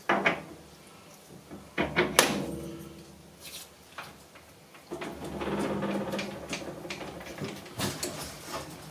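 Metal lathe work: a few sharp metal clanks, some ringing briefly, in the first couple of seconds as tooling is set up. From about five seconds in comes a steadier run of mechanical noise with a low hum.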